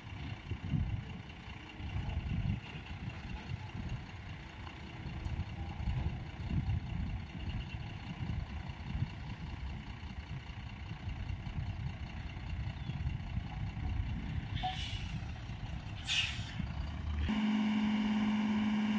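Heavy tipper truck's diesel engine running while the raised tipper body dumps its load of sand, with a rough, uneven rumble. Two short air hisses come about 15 and 16 seconds in, and about 17 seconds in a steady, louder drone takes over.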